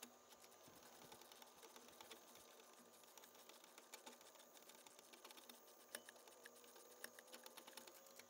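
Faint, quick clicking of a ratchet wrench turning the socket on a new spark plug as it is tightened into a Kawasaki FH661V mower engine. The clicks come in quicker runs near the end, as the plug snugs down.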